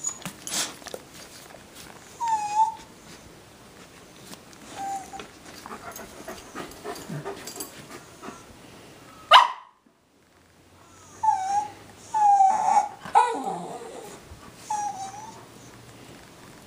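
Dogs whining: short, high whines that curl downward, two spaced out in the first half and a run of four close together in the second half, where the dachshund is pressing her point at the German shepherd. A sharp click about halfway, then a second of silence.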